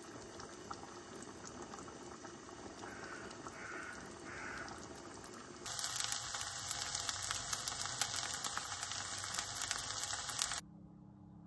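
A pan of rice in tomato and stock bubbling at a simmer. About six seconds in, it gives way to the louder sizzle of plantain slices frying in hot oil in a frying pan, full of small crackles, which cuts off suddenly about a second before the end.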